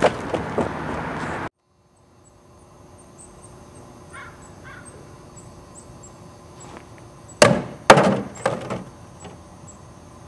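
A quick cluster of loud, sharp knocks or blows about seven and a half seconds in, over a quiet background with faint, very high, short chirps.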